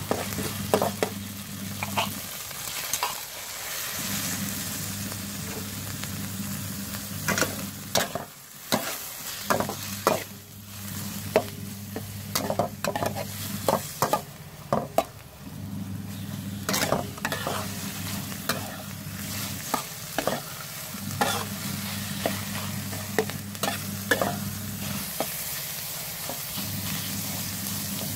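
Shrimp and chili paste sizzling in a metal wok as they are stir-fried, with a metal spatula scraping and clinking against the pan many times.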